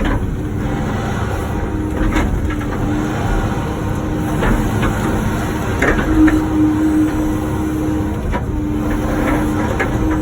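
Wacker Neuson ET145 excavator working: its engine runs steadily under load with a hum that comes and goes, while the bucket knocks and scrapes several times against blacktop and concrete.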